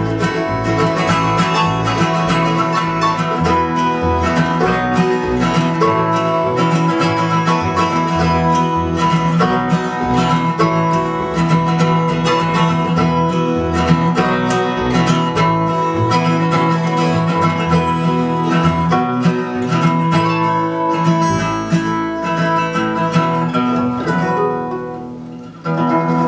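Acoustic bluegrass-style string band playing an instrumental passage: strummed and picked acoustic guitars over upright bass, with no singing. The playing thins out and drops in level near the end.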